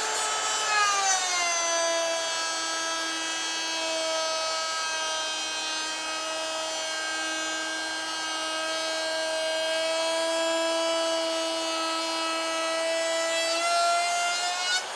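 Handheld router with a chamfer bit cutting along the edge of a Lexan polycarbonate sheet: a loud, steady motor whine. The pitch drops over the first two seconds as the bit takes up the cut and rises slightly near the end as the load comes off.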